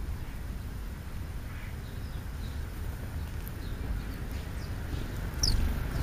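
Small birds giving scattered short, high chirps, with one brighter falling chirp near the end, over a steady low rumble.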